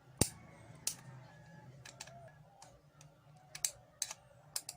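Screw turned by hand into a hole in the record changer's plate, cutting a thread: a sharp click about a quarter second in, another near one second, then scattered lighter ticks of tool and metal.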